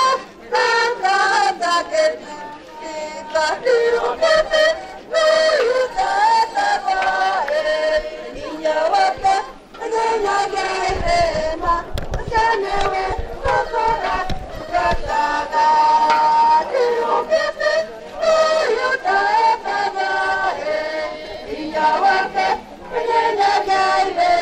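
A group of voices singing a slow song, melody lines rising and falling without a break.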